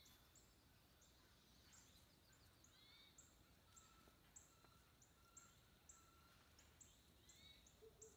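Faint birds calling: a string of short, high chips about two or three a second, with a few curved, slurred calls and short level whistles mixed in.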